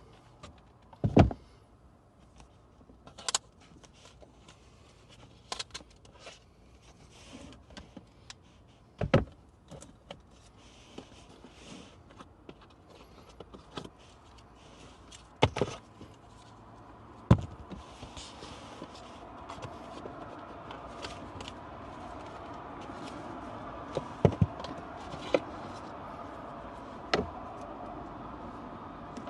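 Hands unpacking a laptop from its box: scattered sharp knocks, taps and clicks, with light scraping and rustling between them. About halfway through, a steady low hum comes up underneath and stays.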